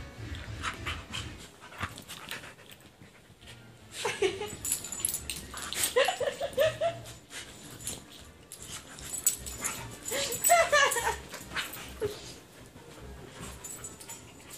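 Two dogs play-fighting on a bed: high whining, yelping calls in three bouts, about four, six and ten seconds in, over scuffling on the bedding.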